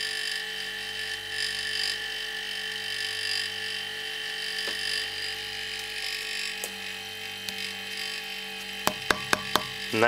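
Two Kirby refrigerator compressors running steadily with an even, pitched hum, pumping air into a tank at about 150 psi. A few sharp clicks come near the end.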